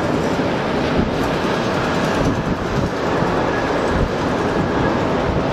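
Steady jet-engine noise from an airliner on the airfield, heard from a distance and mixed with wind on the microphone.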